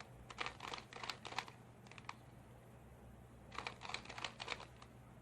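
Rubik's cube faces being turned by hand: quick runs of light plastic clicks, one about half a second in lasting about a second, another about three and a half seconds in.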